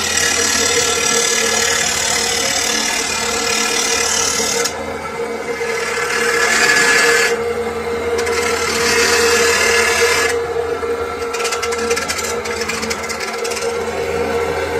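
Electric abrasive chop saw's cut-off wheel grinding a flat steel bar held against it by hand, in three harsh bouts of a few seconds each. After about ten seconds the wheel spins freely with a steady motor hum and some light rattling.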